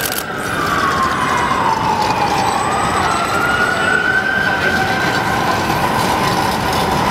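An emergency vehicle's siren wailing over steady street noise. Its pitch slides slowly down, rises again about two and a half seconds in, then sinks near the end. A short click comes at the very start.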